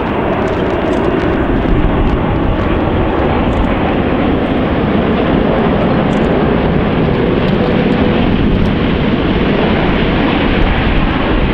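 Airbus A380 flying low overhead in a banking pass; its four turbofan engines make a loud, steady jet rumble.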